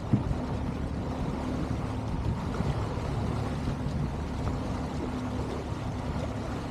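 Boat's outboard motor running steadily at trolling speed, a low hum under wind and water noise, with a single sharp knock just after the start.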